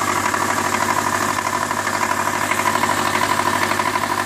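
Subaru EJ25 2.5-litre flat-four idling cold with a loud, fast, even knock. The owner takes it for rod knock, with metal shavings found in the oil.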